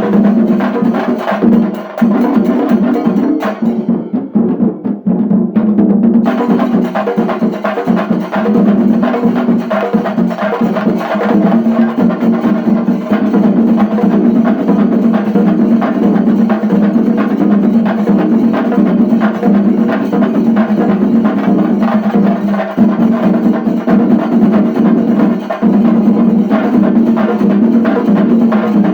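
Shinkari melam ensemble playing: chenda drums beaten fast and dense with sticks, in a loud, continuous rolling rhythm.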